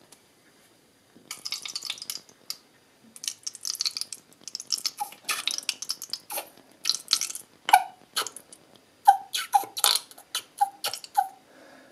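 Thick barbecue dip sauce spurting and squelching out of a bottle into a small ceramic bowl in irregular spurts, with short gurgling blips in the second half as air gets back into the bottle.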